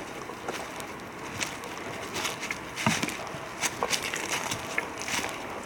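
Footsteps crunching through dry fallen leaves and twigs, in irregular crackles and snaps.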